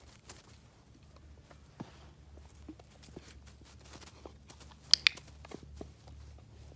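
Faint scuffs and taps of a puppy moving on grass around a small wooden training box, with two sharp clicks close together about five seconds in, the loudest sounds.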